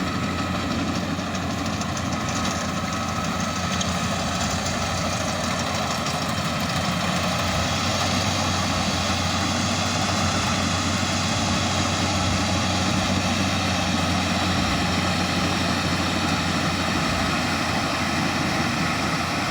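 Combine harvester running steadily: a constant heavy engine hum with dense mechanical noise over it.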